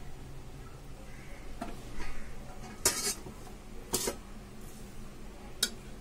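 A metal spoon scraping and clinking against a pressure cooker pot and a stainless steel plate as cooked rice is scooped out and served. There are a few soft knocks, then three sharp clinks about three, four and five and a half seconds in.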